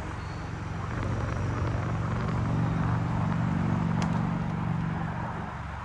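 A low engine drone that swells about a second in and fades near the end, heard over the rolling noise and wind of a bicycle riding along a concrete trail, with one short click partway through.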